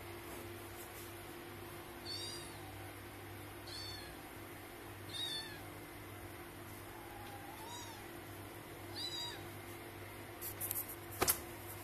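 A cat giving short, high-pitched mews, five of them spread a second or two apart while two cats wrestle. Near the end come a few sharp clicks and a loud knock.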